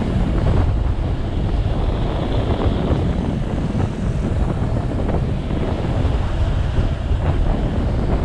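Heavy, steady wind rumble and buffeting over the microphone, strongest in the deep lows, the sound of moving at speed.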